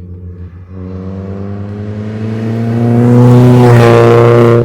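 Chevrolet Astra 2.0 four-cylinder engine through a straight pipe with no muffler, accelerating hard. Its loud, raw note rises steadily in pitch and volume, then drops off abruptly at the end as the throttle is lifted or a gear is changed.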